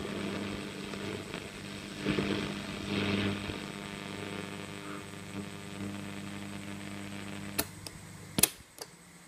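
Philips Stella 533 valve radio giving a steady hum with hiss and static that swell and fade as its antenna knob is turned. Near the end come a few sharp clicks of its piano-key buttons being pressed, and the hum and static drop away.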